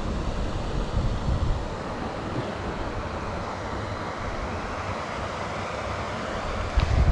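Wind buffeting the microphone: a steady rushing noise with gusty low rumbling, strongest in the first second and a half.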